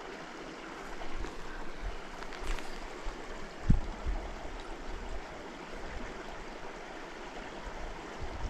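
Shallow creek water running steadily, with a single low thump a little under four seconds in.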